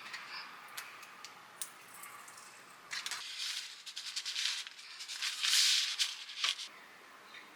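Kitchen handling sounds during food preparation: sharp clicks, then rattling and rustling that grows louder in the middle and dies away near the end.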